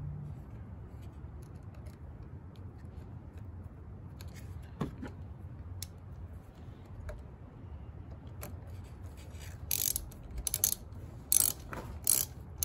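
Hand socket ratchet clicking in short runs as the 10 mm nut on a car battery's positive terminal clamp is tightened, starting about ten seconds in. Before that, only a faint low background hum and a single light click.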